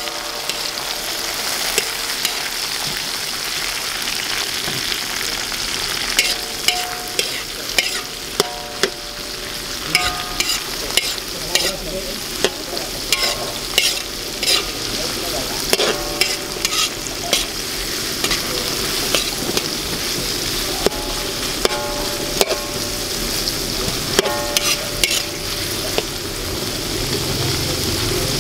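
Garlic, chilli and sliced onion frying in oil in a metal wok: a steady sizzle, with frequent clicks and scrapes of a metal spoon stirring against the pan.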